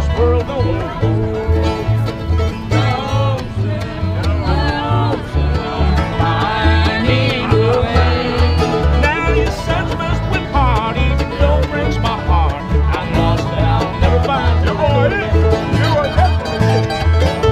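Bluegrass played on acoustic guitar, mandolin and banjo, with alternating bass notes on a steady beat.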